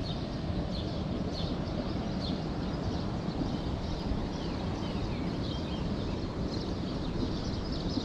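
Steady low rumbling outdoor noise, with small birds chirping thinly over it.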